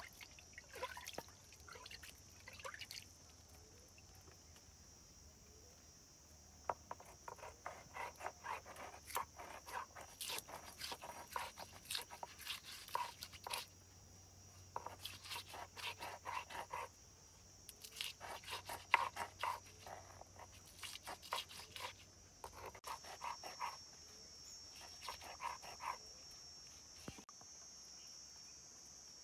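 Round hand stone crushing and grinding red and green chillies on a flat stone slab: runs of quick scraping, crunching strokes a few seconds long, broken by short pauses. A steady high insect drone runs underneath.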